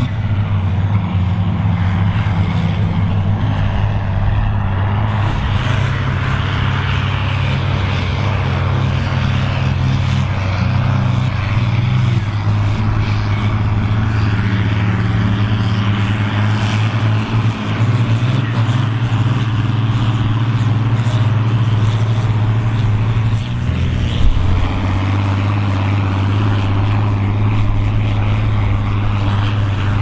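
Volvo BM tractor's diesel engine running hard under heavy load while pulling a plough, a steady deep drone. The engine note dips briefly about three-quarters of the way through, then picks up again.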